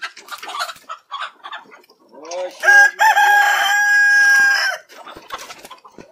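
A rooster crows once: the call starts about two seconds in with a rising note, then holds one long steady note for a couple of seconds and stops. Hens cluck in short calls before and after it.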